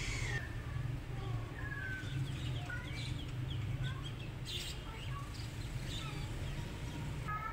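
Birds chirping and calling in short, scattered notes, over a steady low hum.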